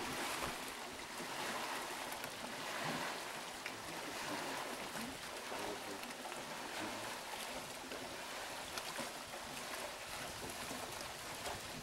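Steady outdoor rush of wind and choppy lake water, an even hiss without a clear tone.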